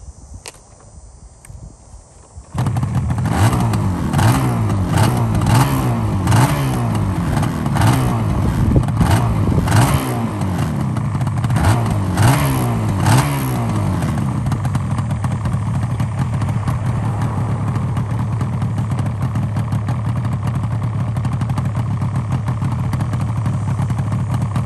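Yamaha RZ350's liquid-cooled two-stroke parallel twin, kick-started for the first time after two months of sitting, catches abruptly about two and a half seconds in. It is blipped about ten times, each rev rising and falling, then settles to a steady idle from about fourteen seconds on, which the owner takes to mean it is running well.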